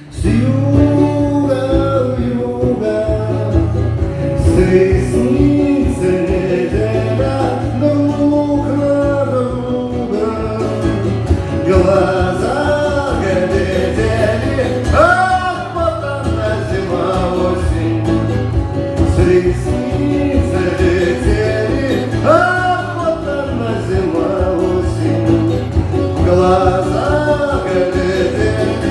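A man singing over a strummed acoustic guitar in a live song performance.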